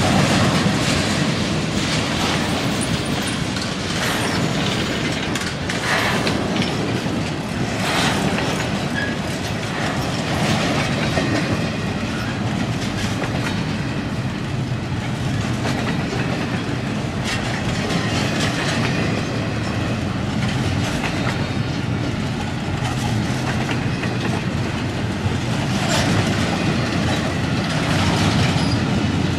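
CSX double-stack intermodal freight train's well cars rolling past: a steady rumble of steel wheels on rail with clickety-clack over the joints and a few sharper clanks.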